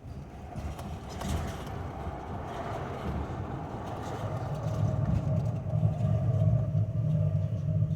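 Wilwood big brake kit on a 2005 Toyota Tacoma making its noise as the truck moves: a steady mid-pitched tone that sinks slightly in pitch over a low rumble, which grows louder about halfway through. The uploader traced the noise to a kit installed without following the instructions.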